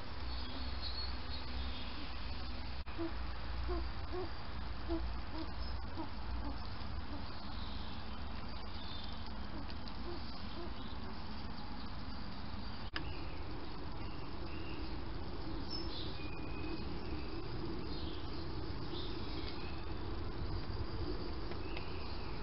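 Garden ambience: a steady hiss over a low rumble, with scattered faint bird chirps and a couple of brief clicks.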